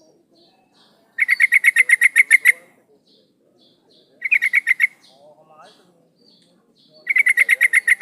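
Female yellow-vented bulbul calling: three bursts of rapid, evenly spaced chattering notes, about eight a second, with faint soft chirps between the bursts. It is the call a female uses to draw in a male.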